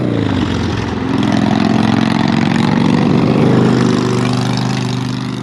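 A motor vehicle engine running steadily, growing louder through the middle and fading away near the end.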